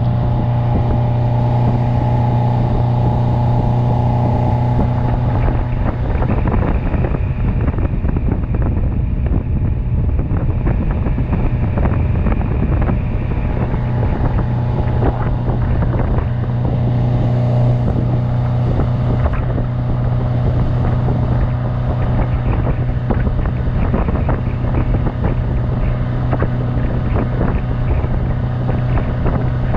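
Yamaha 150 hp outboard motor running steadily at cruising speed while towing a tube, with water rushing in the wake and wind on the microphone.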